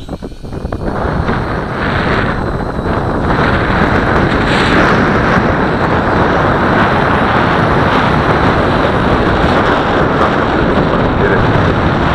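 Strong wind buffeting the microphone: a loud, steady rumbling rush that swells up from a brief lull in the first second or two.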